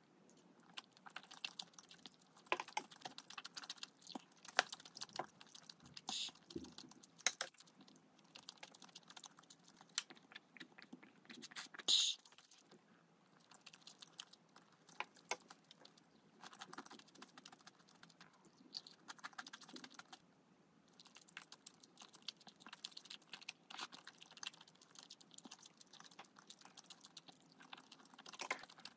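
Eating sounds close to the microphone: chewing with scattered small clicks of utensils or tableware, and one louder sharp clatter about 12 seconds in.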